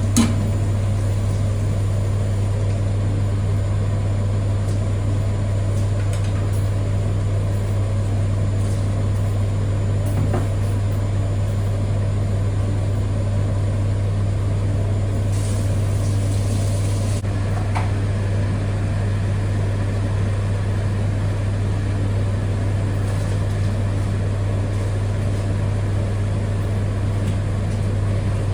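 A steady low electric hum from an appliance running, unchanging throughout, with a brief click just after the start.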